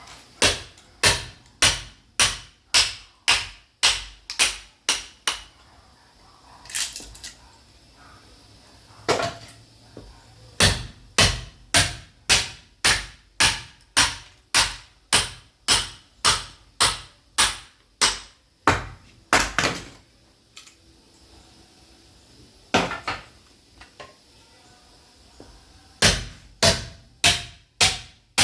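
Sledgehammer striking a steel chisel driven into caviúna wood to split it: sharp ringing blows in runs of about two a second, broken by pauses with only a blow or two.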